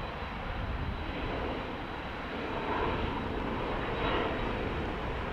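Jet airliner engines heard at an airport: a steady rush with a deep rumble that swells slightly about three to four seconds in.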